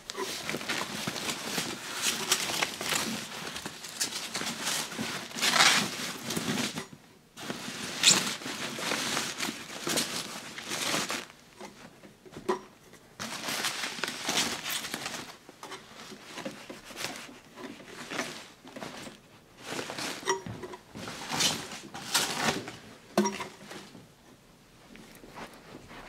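Rustling and crinkling of packaging, a white wrapping pulled and handled around a Mac Pro tower as it is lifted out of its box, in irregular bursts with brief pauses.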